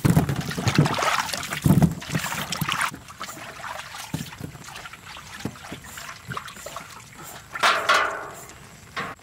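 Water splashing and sloshing in a metal basin as hands wash peeled sweet potatoes. It is loudest for the first three seconds, then drops to quieter drips and knocks, with one more short splash near the end.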